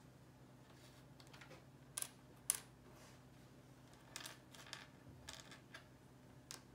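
Small stamp-game tiles clicking and tapping as they are set down and slid on a wooden tabletop: two sharp clicks about two seconds in, then a run of lighter taps later on. A faint steady low hum is present throughout.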